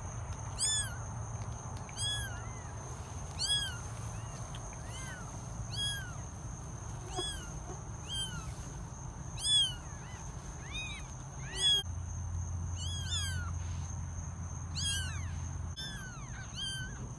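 Newborn kittens mewing: thin, high-pitched cries, each a quick rise and fall, coming one or two a second and sometimes overlapping.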